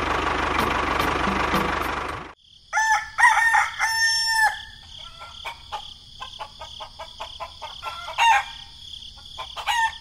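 A tractor engine running steadily, cut off abruptly about two seconds in. A rooster then crows, followed by scattered bird chirps over a steady high insect buzz.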